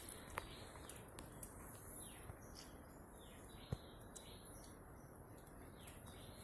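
Faint wild birds chirping: many short, downward-sweeping calls repeating over a steady high hiss, with a couple of soft clicks.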